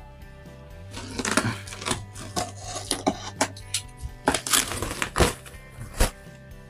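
Plastic bubble wrap crackling and rustling as a utility knife slices through the packing and the wrap is pulled apart, in a series of irregular crackles with the sharpest near the end, over steady background music.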